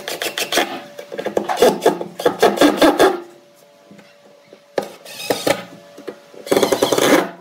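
Wood being worked by hand with quick rasping, rubbing strokes for about three seconds. After a pause there are two shorter bursts of strokes near the end.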